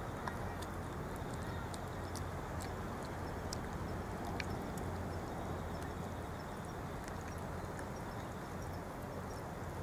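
Two cats eating wet food from foam trays: many small, irregular clicks of chewing and lapping over a steady background hiss.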